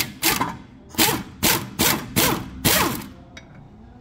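Hand ratchet being swung back and forth, a short burst of pawl clicks on each stroke, about three a second, stopping about three seconds in.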